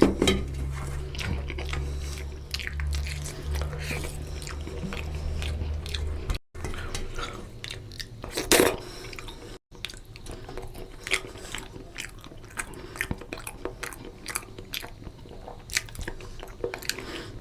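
Close-up chewing of a mouthful of rice and fish curry, with many small wet mouth clicks and smacks and one louder smack about eight and a half seconds in. A low rumble sits under the first six seconds, and the sound drops out for an instant twice.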